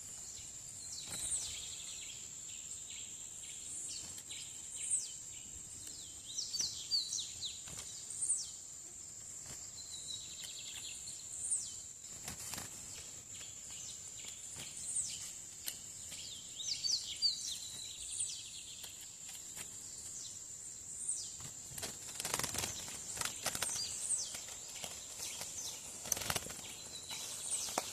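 A small songbird singing short, high chirping phrases every second or two, over a steady thin high-pitched whine. A few sharp clicks come near the end.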